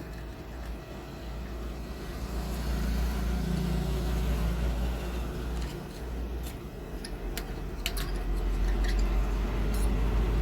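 Light clicks and taps of a CPU heatsink fan being set down and lined up over its mounting holes on a motherboard, a few sharp clicks in the second half, over a steady low hum.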